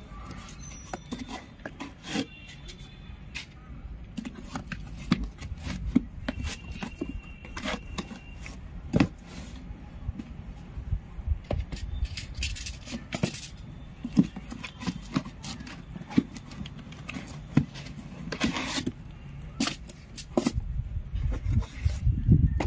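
Cardboard boxes being handled: flaps pushed and folded, small boxes slid out and set down, giving irregular taps, knocks and scrapes over a low background rumble that grows louder near the end.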